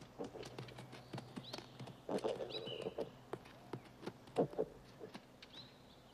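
Night forest sounds from a film soundtrack: scattered clicks and snaps with rustling in undergrowth, and a few short high calls that dip in pitch and then hold.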